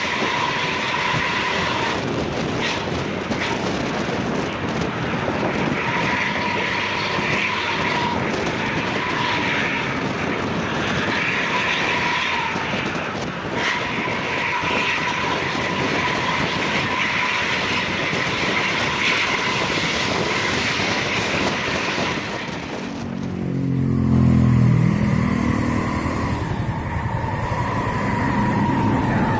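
Diesel bus with a modified exhaust, its tailpipe tip narrowed, running with a steady high whistle over the engine noise: the 'jet darat' (land jet) sound. About 23 seconds in, a louder, deeper sound slides down and back up in pitch for a few seconds.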